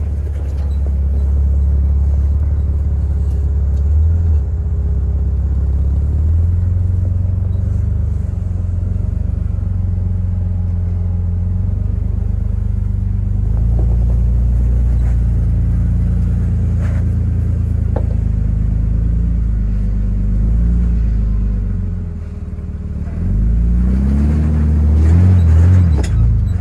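Short-wheelbase Jeep TJ engine running at low revs while crawling up a steep rock ledge, then revving up in several rising pulls near the end as it climbs.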